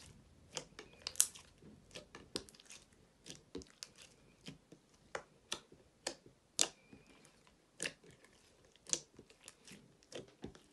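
Glossy glitter slime squeezed and kneaded by hand in a glass dish: irregular sticky pops and clicks, about one or two a second.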